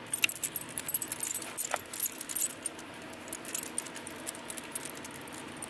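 A dog's metal chain collar jingling and clinking as the dog is petted and shifts about: a quick flurry of clinks for the first two seconds or so, then a few scattered ones.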